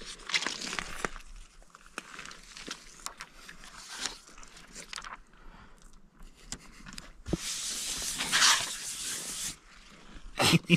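Paper sticker and its backing crinkling and being peeled apart, then the sticker pressed and rubbed down by hand onto a car's hood, in irregular rustles and small clicks. A longer, louder stretch of rustling comes about eight seconds in.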